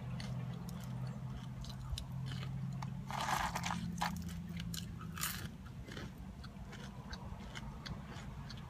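Close-up chewing of very crispy french fries: bites and many sharp crunches, densest about three to four seconds in.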